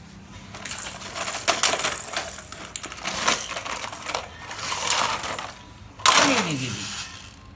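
Small hard objects clinking and clattering in repeated bursts as they are handled and dropped, with the loudest clatter about six seconds in.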